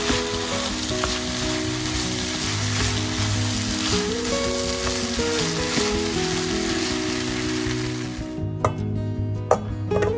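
Raw rice with turmeric sizzling in a nonstick frying pan while a spatula stirs and scrapes it. Near the end the sizzle stops and the spatula knocks sharply a couple of times as the rice is scraped into the rice cooker pot.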